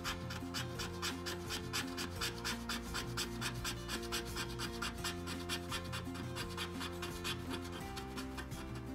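A coin scraping the scratch-off coating from a lottery ticket in rapid, even strokes, several a second, over background music with sustained notes.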